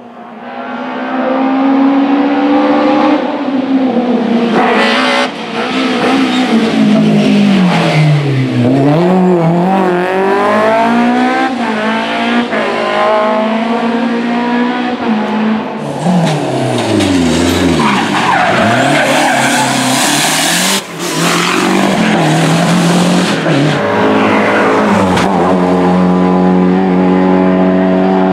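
Historic rally car engines driven flat out through mountain hairpins. The pitch climbs and drops again and again with gear changes and lifts off for corners. About halfway through, a loud tyre skid runs for several seconds under the engine. Near the end an engine holds a steady high note.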